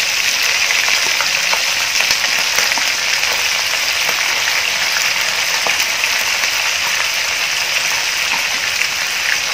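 Raw chicken pieces sizzling in hot oil in a frying pan with lemongrass as they are spooned in: a steady hiss with occasional sharp clicks.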